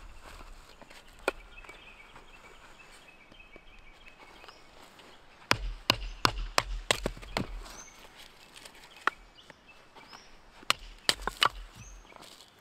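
A run of sharp clicks and knocks in two bunches, one about halfway through and one near the end, over quiet outdoor background with a few faint high chirps.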